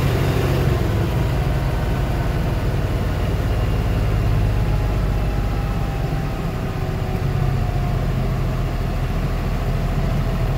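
LS XR4145C tractor's turbocharged diesel engine being throttled down from near full speed, about 2,700 rpm, toward 1,500 rpm. Its pitch falls slowly and steadily. This is the hot engine being eased down in stages just after a completed diesel particulate filter regeneration cycle.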